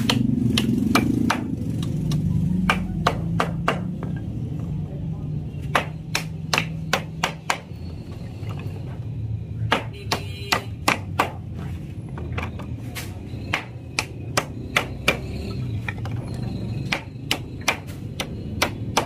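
Hand hammer driving nails through cane ladder rails into wooden rungs: sharp strikes in quick runs of several blows, with short pauses between runs.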